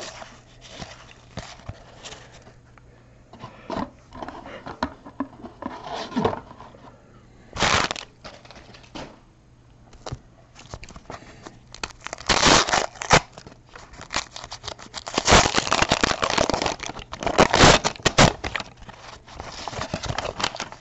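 Baseball cards being flipped and slid against each other in the hand, then a card pack's wrapper crinkling and tearing open in loud, irregular bursts over the second half.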